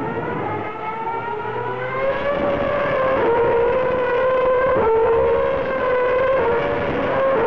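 Formula 1 car engines, the 2.4-litre V8s of 2010, at high revs on the circuit. The pitch climbs over the first two seconds, then holds high with a few brief dips.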